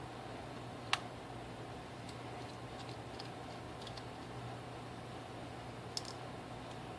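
Small repair tools clicking and tapping against a smartphone's parts during disassembly: a sharp click about a second in, another near the end and faint ticks between them, over a steady low hum.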